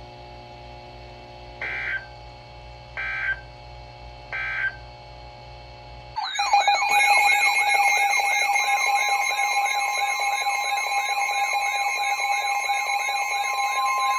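NOAA Weather Radio emergency alert signals: three short buzzy data bursts about a second and a half apart, which close the broadcast message. About six seconds in, a loud warbling alarm starts, announcing the next warning, and a steady tone joins it a couple of seconds later.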